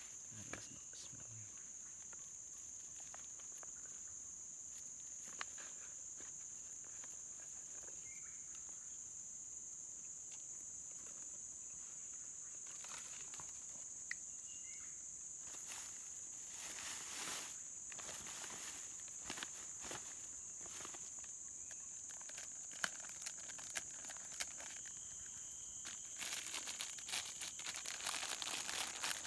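Steady high-pitched drone of insects holding two constant tones, with scattered small clicks and rustling that grows busier near the end.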